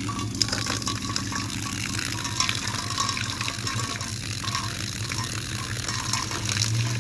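A stream of water spattering and splashing steadily into a stainless steel dog bowl, with a steady low hum underneath.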